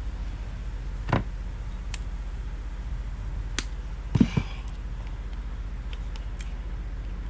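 A few sharp knocks and clicks from hand work on a door and its hardware, the loudest a quick double knock about four seconds in, over a steady low hum.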